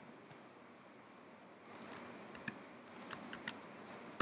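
Computer keyboard typing, faint against a steady hiss: one keystroke, then after about a second and a half a run of quick, irregular keystrokes.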